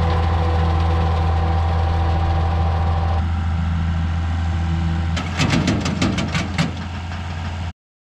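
John Deere 7510 tractor's six-cylinder diesel engine running steadily under load, driving a rotary mower through the PTO. About five seconds in comes a quick run of sharp knocks and clatter.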